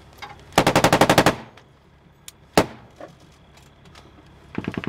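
Automatic weapon fire in a firefight, heard from inside a vehicle. A fast burst of about a dozen rounds comes just after the start, then a single shot midway, and a quieter, more muffled burst near the end.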